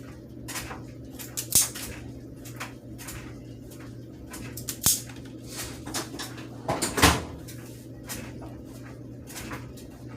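Scattered clicks and knocks of parts and tools being handled, over a steady low hum; a few sharper knocks stand out, the loudest about seven seconds in.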